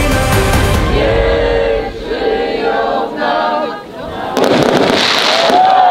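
A song with singing fades out over the first four seconds. About four seconds in, fireworks start crackling and popping overhead, and the crowd cheers with rising and falling whoops.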